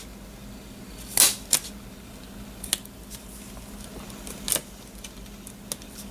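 Handheld single-hole punch clicking as it punches holes through orange cardstock, a few sharp snaps, the loudest two close together about a second in.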